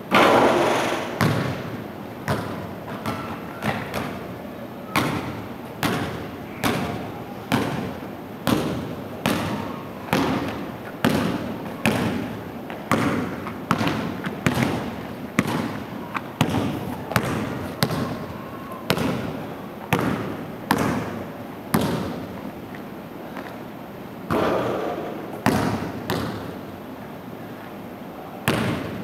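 Basketball being dribbled on a hardwood gym floor: a steady bounce a little more than once a second, each hit echoing in the gym. A louder bang opens the stretch, and a few harder bounces come near the end.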